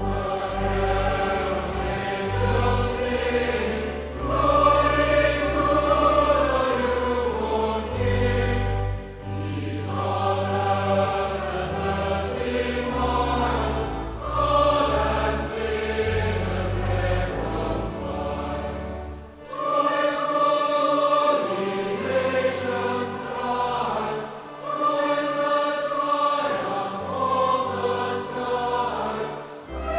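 A choir singing a slow piece in sustained phrases, with brief pauses between them.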